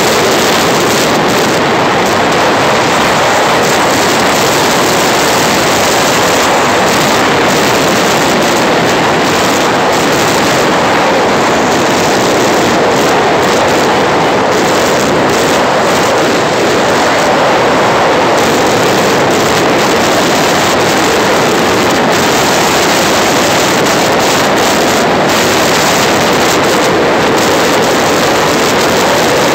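Loud, steady rush of wind over the microphone mixed with the running noise of a vehicle moving at speed.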